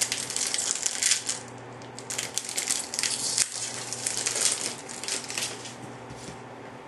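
Foil wrapper of a hockey-card pack crinkling and crackling as it is torn open and handled by hand. The crackling stops about five and a half seconds in.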